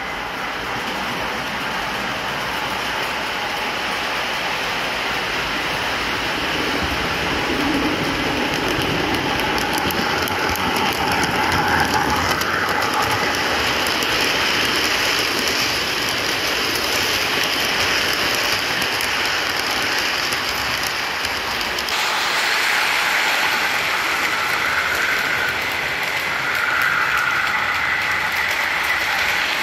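O-gauge MTH Big Boy model steam locomotive hauling a long freight train on three-rail track: a steady rumble and clatter of wheels and motors, growing louder over the first several seconds as the train comes closer.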